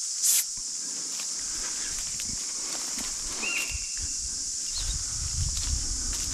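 Footsteps pushing through bush undergrowth, as uneven low thuds that start about halfway in and get heavier, over a steady high hiss. There is a sharp snap right at the start and a short high whistled call about halfway through.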